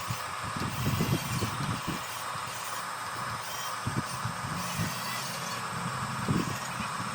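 Electric motors of a radio-controlled model construction vehicle whining steadily, with irregular low knocks and thumps.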